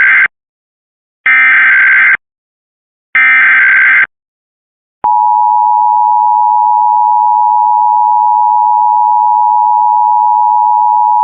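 Emergency Alert System header: the tail of one SAME data burst, then two more, each a second-long blast of high-pitched warbling digital tones with a second's gap between. About five seconds in, the steady two-tone EAS attention signal (853 and 960 Hz) starts and holds.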